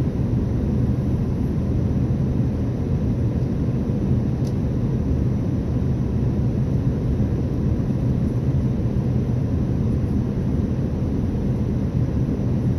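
Steady low rumble of cabin noise inside an Airbus A380's upper deck. A faint click comes about four and a half seconds in.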